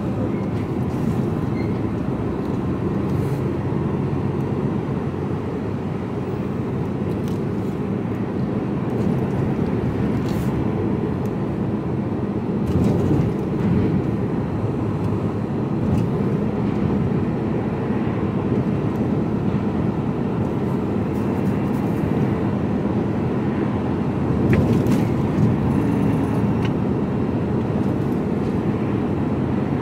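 Diesel engine of an HGV container truck running at a steady cruise, with road noise, heard from inside the cab. A few short knocks and rattles come in about halfway through and again near the end.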